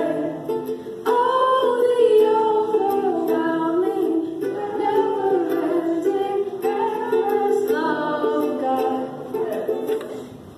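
A young woman singing into a microphone while strumming a ukulele. Her voice is over steady strummed chords, and both grow quieter near the end.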